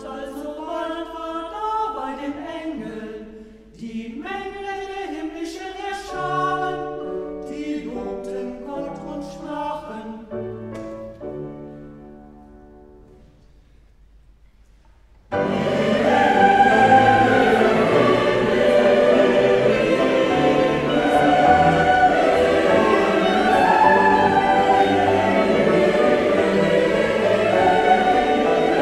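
Music: a slow passage of held notes fades out over the first dozen seconds, then after a short near-silent gap a choir starts abruptly about halfway through and sings on, full and loud.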